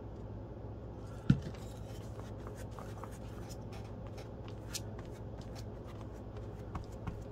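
A plastic glue bottle set down on a cutting mat with a single knock. Then a bristle brush scratches and dabs as it spreads glue over tissue paper.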